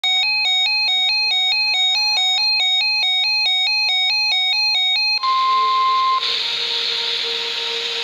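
Handheld NOAA weather radio sounding its alert: an electronic two-pitch beeping that alternates rapidly and evenly. About five seconds in it switches to a single steady high tone lasting about a second, the weather radio warning alarm tone, and then to radio hiss.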